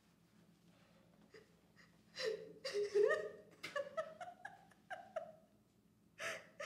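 A woman whimpering and sobbing: a string of short, high, wavering cries beginning about two seconds in, with one more burst near the end.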